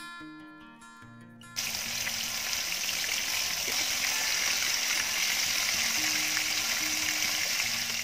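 Acoustic guitar music, then about a second and a half in, the loud, steady sizzle of flour-and-cornflour-coated chicken pieces deep-frying in hot oil cuts in and carries on over the quieter music.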